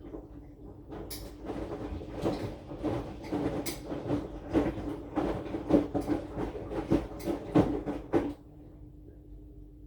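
Aqua AQW-DX12M front-loading drum washing machine turning its drum in the wash, the laundry tumbling with irregular knocks and thuds for about eight seconds before the drum stops. A steady low hum runs underneath throughout.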